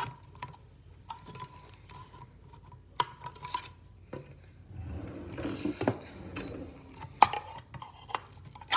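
Kitchen handling noises at a microwave: sharp clicks and light clatter of a dish, with a few short beeps in the first few seconds and a rustling patch in the middle. Two louder knocks come near the end.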